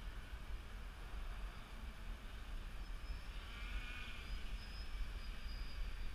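Wind rumbling on the microphone over the faint whir of a quadcopter's electric motors and 10x5 propellers, which grows louder for a moment about three to four seconds in.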